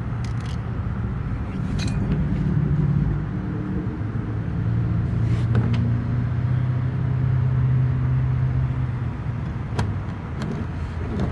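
A steady low mechanical hum with slowly wavering pitch, with a few brief clicks from handling.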